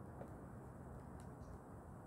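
Wood fire in a brazier crackling faintly: a few soft, scattered pops over a low steady background noise.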